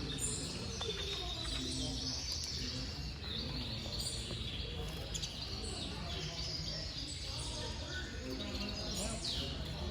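Canaries chirping and twittering, many short high calls and brief trills over a steady low hum.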